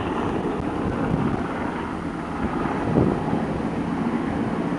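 Steady low rumble of wind buffeting the microphone, with no clear beat or pitch.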